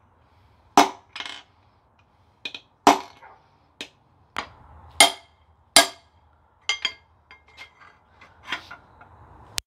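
A hand hammer striking a steel bar held against the connecting rod of a seized piston in a Chrysler 3.6 L Pentastar V6 block, driving the piston out. There are a dozen or so sharp metal-on-metal blows at an uneven pace, each ringing briefly.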